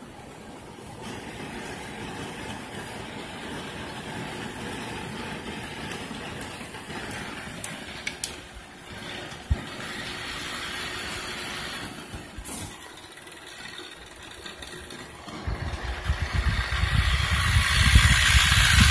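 Electric model train running on sectional floor track: a steady whirring rolling noise from the locomotive motor and wheels, with a few sharp clicks. In the last few seconds a much louder low rumbling takes over.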